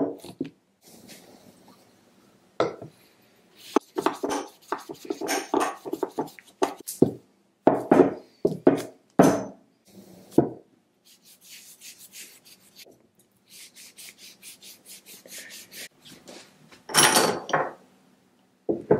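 Small cast-iron bench vise being reassembled by hand. Its steel screw, sliding handle and jaws knock and clink against each other and against a wooden bench. Mid-way there is a run of quick, light ticks as the screw is worked into the jaw, and near the end comes a louder clatter.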